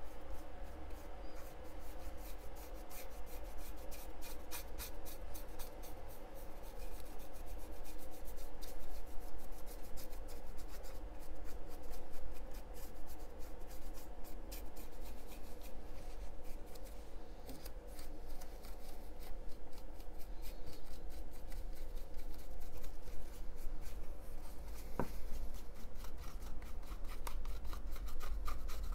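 Stiff flat paintbrush scratching over the rough plaster-and-cork walls and wooden timbers of a scale model house in many quick short strokes: dry-brushing a tan highlight. A single sharp click about 25 seconds in.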